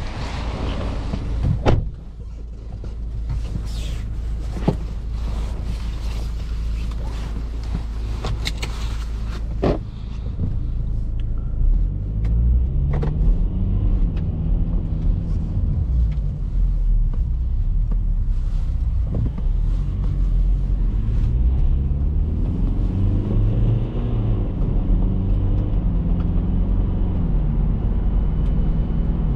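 A car door thumps shut about two seconds in, and a few clicks follow inside the cabin of a BMW X3 F25 with its 2.0-litre four-cylinder diesel idling. From about twelve seconds in the diesel pulls away, heard from inside the cabin. Its pitch rises and drops again and again as the ZF automatic shifts up through the gears.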